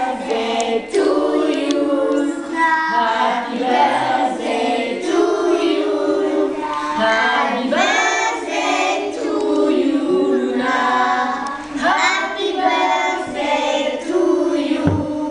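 A group of young children singing together in unison: a birthday song for a cake with lit candles.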